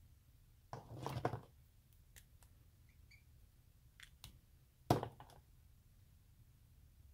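Two short bursts of scraping and rustling about four seconds apart, with a few light clicks between them: hands handling the paper and the colouring tool on the craft mat.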